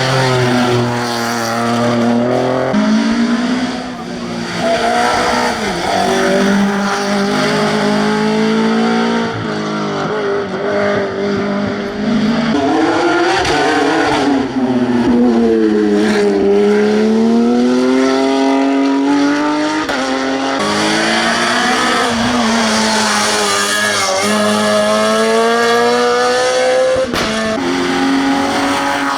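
Rally cars on a tarmac stage at speed, engines revving hard and dropping back again and again as they change gear and brake for corners.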